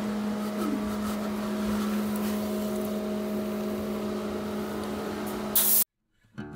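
Plasma cutting rig (PrimeWeld Cut60 plasma cutter and its air supply) running with a steady low hum and a hiss of air. About five and a half seconds in there is a brief loud burst of hiss, then the sound cuts off suddenly.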